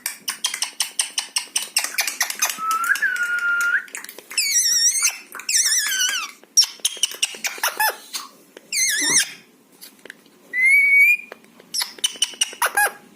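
Pet parrot calling: a run of rapid clicks with a held whistle in the first few seconds, then several warbling squawks and squeaks that wobble in pitch.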